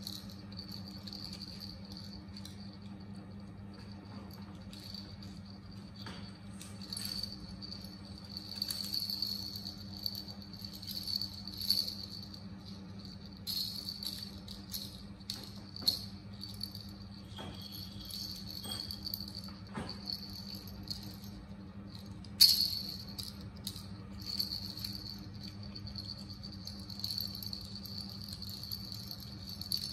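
Plastic baby rattle toy being shaken and turned over, rattling and clicking in irregular bursts, with one sharp clack about 22 seconds in. A steady high-pitched whine and a low hum run underneath.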